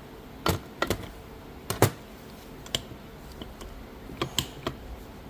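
A run of irregular sharp clicks and taps, about eight in all, from the parts of a 1989 Honda Prelude manual transmission's shift fork and gear stack being worked loose by hand and with pliers.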